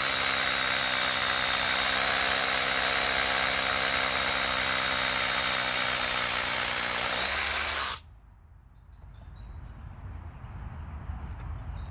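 Worcraft 20V cordless rotary hammer (CRH-S20LiT) drilling into a concrete slab with a masonry bit: a loud, steady hammering drone. Its pitch wavers briefly, then it cuts off about eight seconds in.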